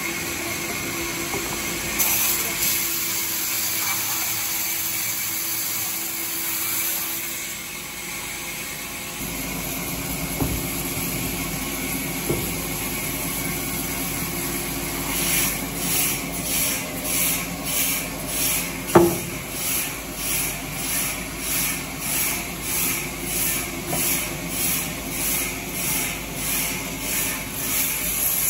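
Large vertical band saw running and cutting through timber, a steady hum. About halfway through, a regular pulsing sets in at about one and a half beats a second, and a single sharp knock comes near two-thirds of the way.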